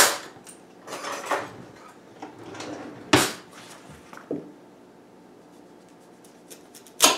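A kitchen knife and utensils knocking and scraping on a stone countertop while a beet is being cut: several short clacks and scrapes in the first few seconds, then a quiet stretch and one sharp click near the end.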